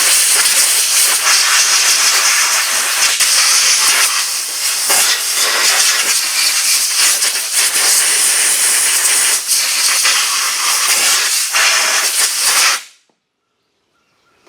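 Compressed air blasting from an air hose nozzle to blow debris out of a riding lawn mower's air filter housing: a loud, steady hiss that cuts off sharply near the end.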